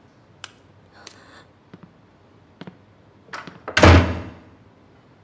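A few faint clicks, then a door shut hard with a loud slam nearly four seconds in.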